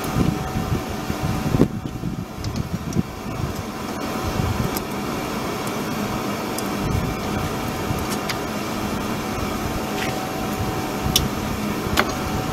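A steady mechanical hum with a thin high tone in it, and a few scattered light clicks as the rear drum-brake shoes and springs are handled.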